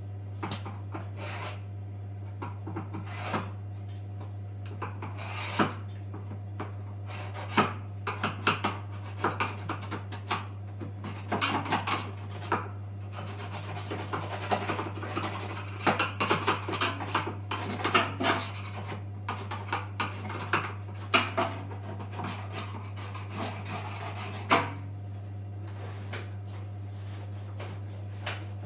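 Hands working on a washing machine during a repair: irregular knocks, clicks and scraping of tools and parts, busiest in the middle. A steady low hum runs underneath.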